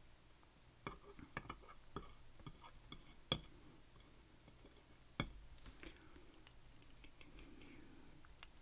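Light metallic clicks and clinks of pinning tweezers and small pins while a lock cylinder is taken apart, a scattered run in the first couple of seconds with sharper clicks a little past three seconds and again past five, then soft handling sounds.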